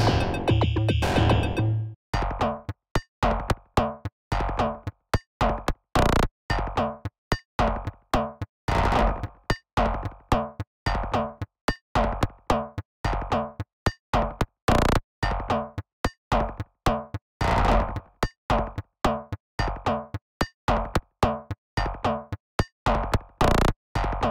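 Inear Display Ephemere glitch percussion synthesizer plugin playing a randomised kit. For the first two seconds it plays a dense, continuous glitchy pattern over a low tone, then changes to a string of short, sharp electronic percussion hits with silent gaps between them, about two or three a second in an uneven rhythm.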